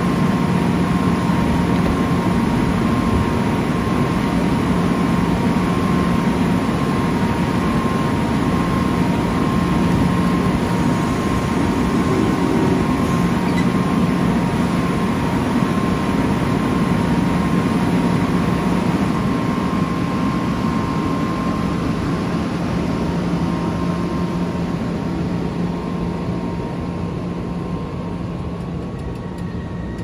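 Amtrak passenger train standing at the platform: a steady loud hum from the train, with a low drone and a higher steady tone. It eases off over the last several seconds as the train begins to pull out.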